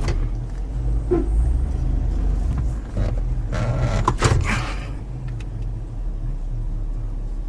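Vehicle engine idling, heard from inside the cab as a steady low rumble, with a few knocks and a louder rustling stretch about three and a half seconds in.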